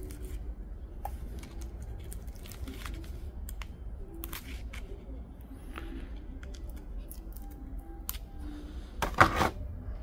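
Small clicks and snips of bonsai pliers working the branches of a Chinese juniper, stripping bark to make shari deadwood. About nine seconds in there is a louder clatter as the metal tool is set down in the tray.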